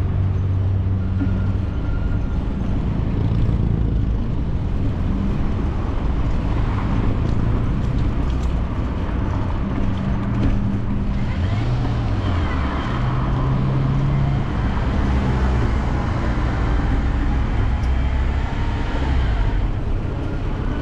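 Road traffic passing on the avenue beside the bike lane, over a steady low rumble. A vehicle goes by about halfway through with a rising and falling engine note, and there is more tyre hiss through the second half.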